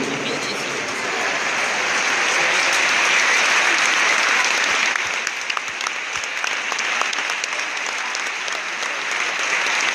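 Large stadium crowd applauding: a dense, steady wash of clapping from the stands.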